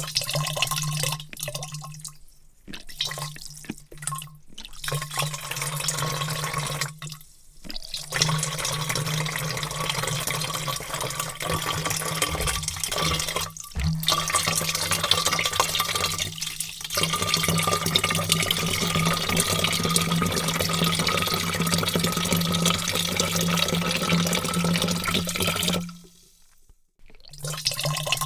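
Water pouring in a heavy stream into a large vat, running steadily with several brief breaks in the flow during the first few seconds and a longer stop near the end before it starts again.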